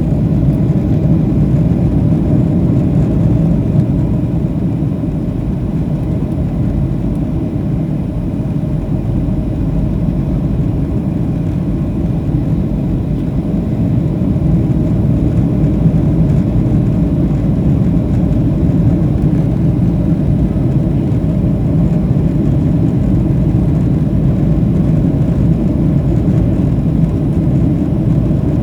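Steady low rumble of a Boeing 737-700 cabin in flight: jet engine and airflow noise, even throughout with no sudden events.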